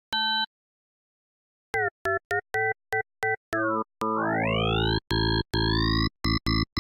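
Access Virus TI synthesizer playing a gated formant lead. A single short note, then rapid chopped stabs. About four seconds in, the sound fills out into a sustained, gated tone whose upper overtones sweep upward as the oscillator's formant spread is turned.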